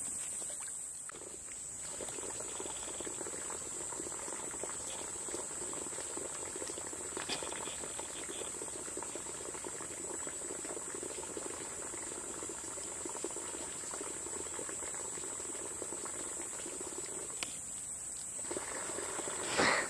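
Vervet monkeys foraging in dry leaf litter, a dense crackling and rustling patter that sets in about two seconds in and fades near the end, over a steady high insect buzz.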